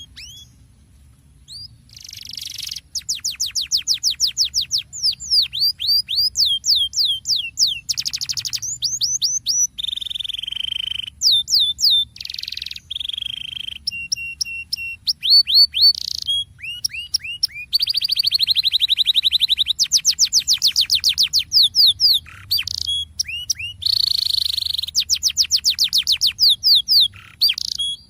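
Domestic canary singing a long rolling song, switching every second or two between runs of rapid down-slurred whistled notes and buzzy fast trills. The song starts about two seconds in and stops just before the end.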